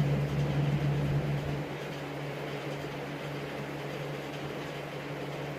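A steady low mechanical hum with faint background noise. It drops in level about a second and a half in and then holds.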